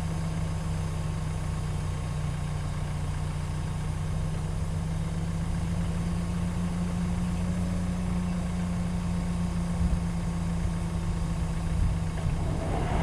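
Cat 314E excavator's diesel engine idling steadily, an even low hum.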